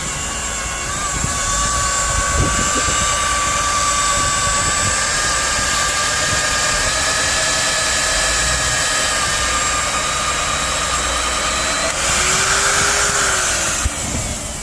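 Nitto WOJ-3200 magnetic drill running with a steady high motor whine. About twelve seconds in, a louder hissing stretch rises over it for a couple of seconds, then the sound falls away near the end.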